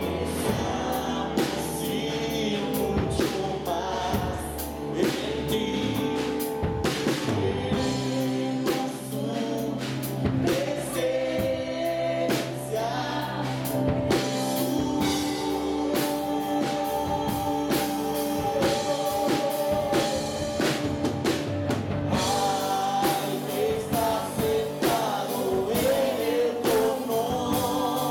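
Live worship band playing a Spanish-language praise song: a woman and a man singing into microphones over keyboard, electric guitar, bass guitar and drum kit.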